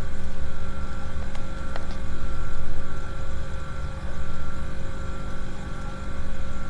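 A low rumbling drone that rises and falls in slow swells, with a thin steady high tone above it.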